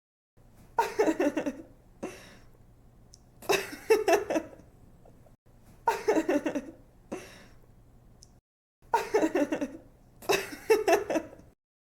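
A young woman laughing in bouts of quick, breathy giggles, about five bursts in a row. The same laugh restarts after brief dead-silent gaps, as a looped recording.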